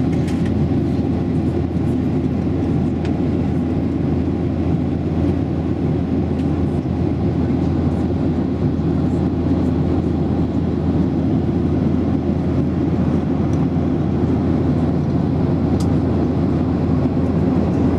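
Steady cabin drone of a Boeing 737-800 in flight, heard from inside the cabin over the wing: its CFM56-7B turbofan engines and the rushing airflow make an even low rumble and hum that stays level, with no change in pitch.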